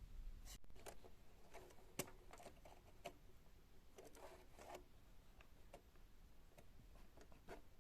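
Near silence: room tone with a few faint clicks and light knocks, the clearest about two seconds in. The table saw is not running.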